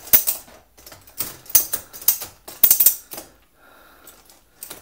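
Loose end section of a cheap folding massage table clattering as it is rocked and lifted by hand: a quick run of sharp knocks and rattles from its frame and joints, stopping about three seconds in, then one more knock near the end. The rattle is the sign of how unstable and poorly built the table is.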